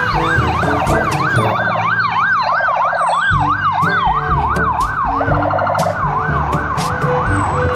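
Police siren wailing rapidly up and down, about three sweeps a second.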